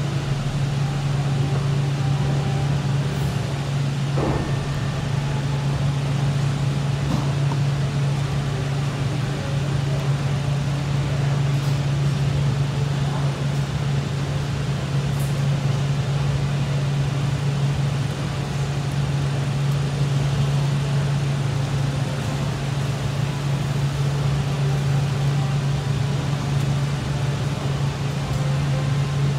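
Steady low hum of a ventilation fan, with one soft knock about four seconds in.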